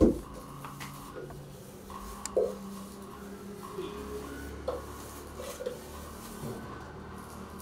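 Kitchenware handled while cookie dough is transferred out of a mixer bowl: a sharp knock of a bowl or utensil at the start, then a few faint clinks and light scraping over a low steady hum.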